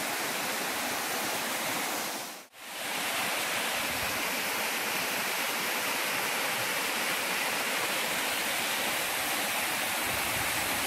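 Waterfall running steadily, a constant rush of falling water that cuts out briefly about two and a half seconds in.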